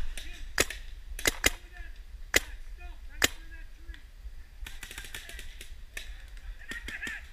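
Paintball markers firing: sharp single shots about a second apart, then a quicker run of shots about five seconds in.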